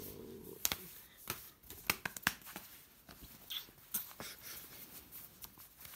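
A held voice-like sound that ends about half a second in, then a dozen or so irregular sharp clicks and light taps.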